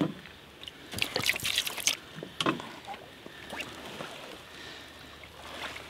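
Wet crinkling, rustling and slapping as a mirror carp is turned over on a wet unhooking mat. A dense burst of crinkles and knocks comes about a second in, then a single sharp knock, then quieter handling.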